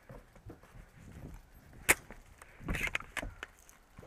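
One sharp crack about two seconds in, then a second or so of rustling and knocks as the player moves on the wooden deck and brings a scoped airsoft rifle up to aim.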